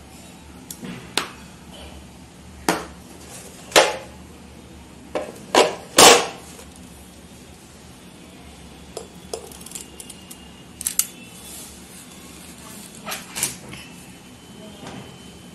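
Stainless-steel trigger-release ice-cream scoop knocking and scraping in a plastic tub of frozen ice cream, then clinking on glass dessert bowls. A run of sharp knocks comes in the first six seconds, the loudest about six seconds in, followed later by sparser light clicks.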